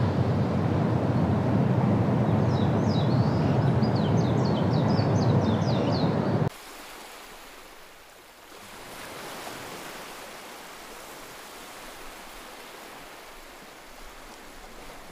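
Surf and wind on a beach, loud for the first six seconds or so, with a quick run of high bird chirps about two seconds in. The roar then cuts off suddenly to a much softer, steady wash of surf.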